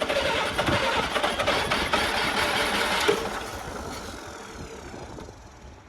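Restored Ashok Leyland 680 straight-six diesel engine running with a dense, fast clatter. About three seconds in, the sound begins to die away and keeps fading to the end.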